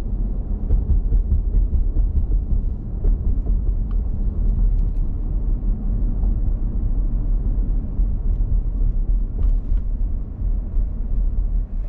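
Car driving along a city street, heard from inside the cabin: a steady low rumble of road and engine noise.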